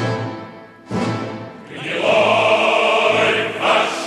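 Choral music with orchestra: a choir singing held chords, with two sharp strikes at the start and about a second in.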